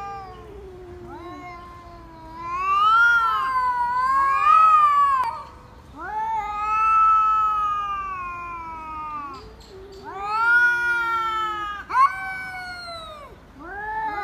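Two domestic cats yowling at each other face to face in a threat standoff: long drawn-out wailing calls that rise and fall in pitch, coming in several long bouts, with the two voices overlapping at times.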